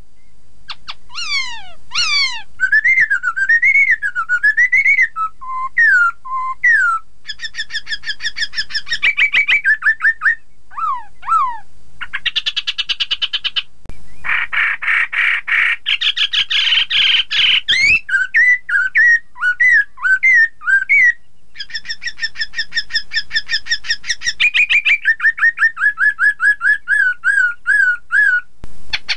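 Black-throated laughingthrush (Poksay Hongkong) singing a loud, varied song. Whistled notes swoop up and down, fast runs of repeated notes break in, and there are several brief pauses.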